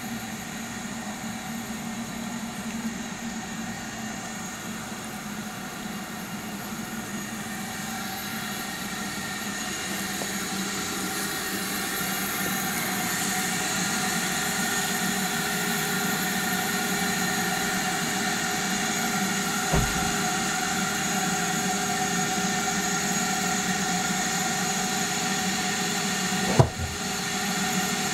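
A steady mechanical drone of a motor or engine running, with several held tones, growing louder over the first half. Two brief knocks in the second half.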